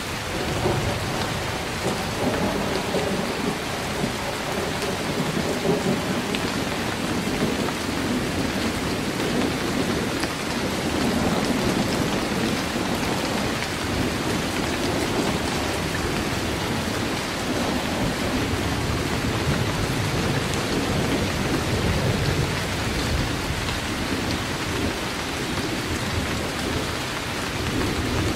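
Heavy rain falling steadily, with low thunder rumbling underneath that swells and fades without any sharp claps.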